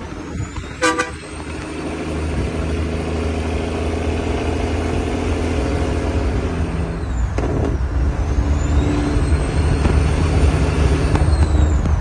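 Big-rig diesel engine running under load with its turbo whistling: a very high whistle climbs and holds, drops away about seven seconds in, then climbs again and falls near the end, over a deep engine rumble. A short horn toot sounds about a second in.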